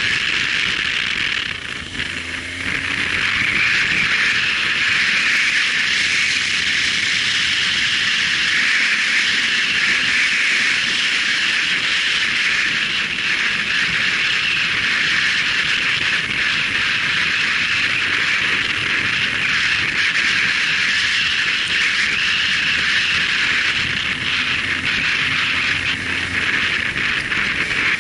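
Steady rush of wind and road noise picked up by a camera on a moving motorcycle, with the bike's engine faintly heard under it about two seconds in and again near the end.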